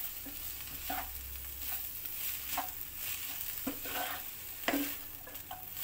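Shredded vegetables frying with a steady sizzle in a non-stick kadhai, while a spatula stirs and tosses them, scraping across the pan about five times.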